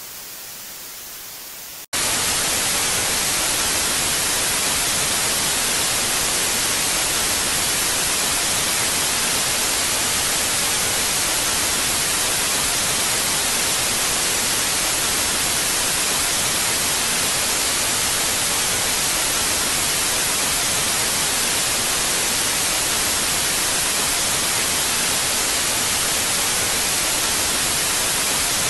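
Steady static hiss. It cuts in suddenly and loudly about two seconds in, after a quieter stretch of faint hiss, and then holds without change.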